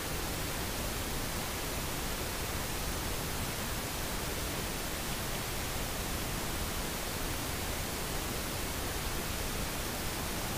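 Steady, even hiss of a microphone's background noise, with no other sound.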